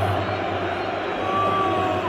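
Large football stadium crowd: a dense, steady din of many voices cheering and shouting, with a short held tone heard faintly near the end.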